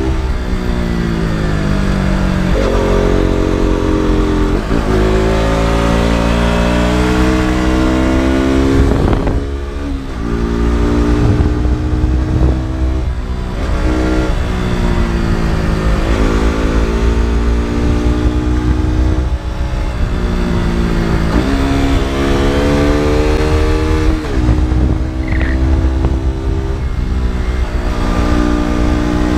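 KTM RC 200's single-cylinder four-stroke engine and exhaust under a riding load, revving up through the gears: the pitch climbs and then drops sharply at each shift, over and over. About nine seconds in the throttle briefly closes and the engine drops off before pulling again.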